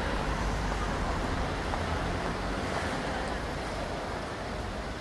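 Steady city traffic noise, a continuous wash of distant road vehicles with no single event standing out.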